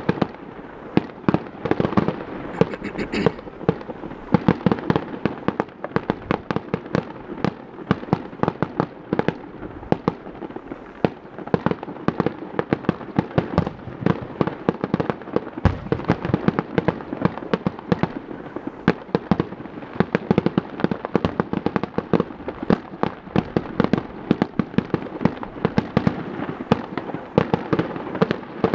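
Distant fireworks going off continuously: a dense, irregular stream of bangs and pops, several a second, with louder bangs standing out above the rest.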